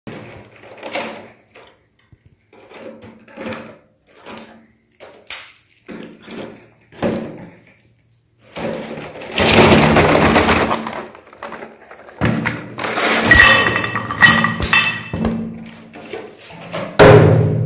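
Plastic-wrapped umbrella-shaped chocolate candies knocking, clattering and rustling as they are dropped and poured onto a ceramic plate. Scattered single knocks come first, then a long noisy pour and more clatter, and a loud knock near the end.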